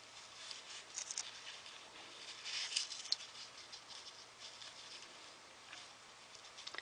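Faint water flowing into a basement floor drain pipe from a side pipe during heavy rainfall, a soft hiss with scattered small drips and patters.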